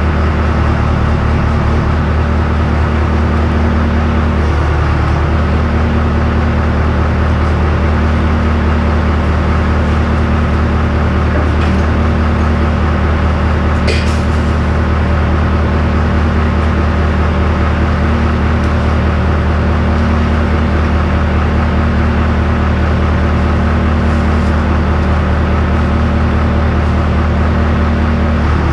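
An engine running steadily at a constant speed with a deep, even hum. A single sharp click or tap stands out about 14 seconds in.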